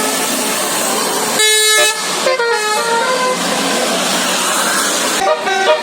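Tour bus's 'basuri' musical air horn, a multi-tone telolet horn, playing a tune of short stepping notes. A long high note comes about a second and a half in, then falling steps, a stretch of steady noise, and more notes near the end.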